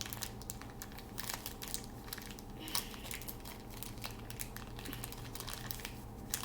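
Small toy blind bag crinkling and crackling in the hands as it is handled to be opened, with irregular crackles and one sharper crackle a little under three seconds in.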